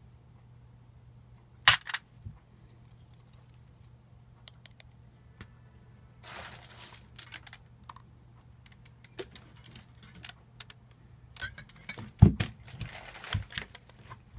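Sharp clicks and knocks of hard small parts of a lightsaber replica hilt being handled during disassembly, with a brief rustle about six seconds in and a quick run of knocks near the end, over a steady low hum.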